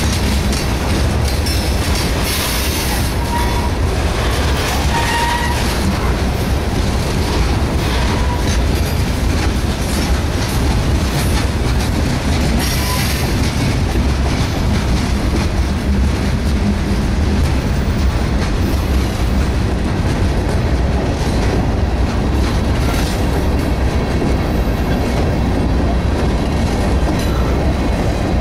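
Freight cars of a CSX train rolling slowly past at close range as the train takes a siding through a turnout: a steady low rumble with wheels clacking over rail joints. A few faint, short wheel squeals come in the first several seconds.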